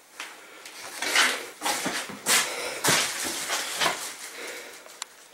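A person breathing hard and fast in noisy gasps, with rustling and a couple of sharp knocks from a jostled handheld camera.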